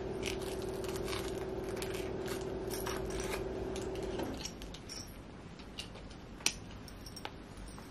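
Light clicks and metallic clinking of a dog harness's clasps and metal tag being handled and fastened on a puppy, with one sharper click near the end. A steady low hum runs underneath and stops about four seconds in.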